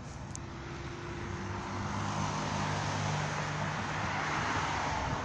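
Motor vehicle going by: a low engine hum and road noise swelling over the first two seconds, then holding steady.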